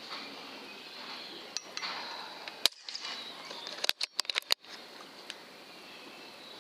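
Air rifle shooting at a rat, and needing a second shot: sharp cracks near the middle, then a quick cluster of clicks and knocks, over a faint steady high hiss.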